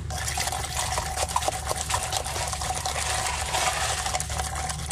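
Handheld electric drink mixer switched on, its motor whining steadily while the whisk churns the drink in a plastic cup, with liquid sloshing and small clicks against the cup.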